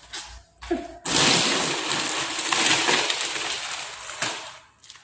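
Loud rustling of a children's tent's fabric as it is handled and spread out during setup. It starts about a second in and fades out about a second before the end.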